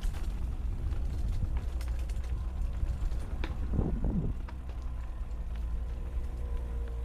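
Mountain bike riding down a rough dirt trail: a steady low rumble of ride and wind noise on the GoPro, with scattered clicks and rattles from the bike over the ground and a short louder burst about four seconds in.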